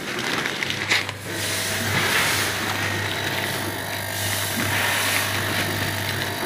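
Packing machinery running steadily, a constant hum with hiss. A single sharp knock comes about a second in.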